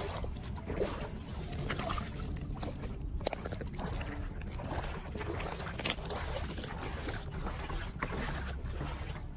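Steady low wind rumble on the microphone, with scattered light splashes and drips of water as a plastic cup is lifted out of muddy floodwater.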